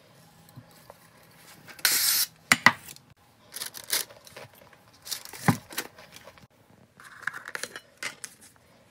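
Kitchen handling sounds: irregular rustling and scraping, the loudest a short burst about two seconds in, with a couple of sharp knocks.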